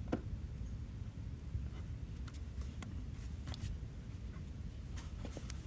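Plastic air filter box cover on a Toyota Prius C being worked back into place by hand: scattered light clicks and scraping of plastic on plastic, over a steady low rumble.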